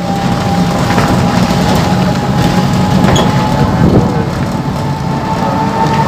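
Motorcycle engine running at a steady low speed, with a rushing road and wind noise.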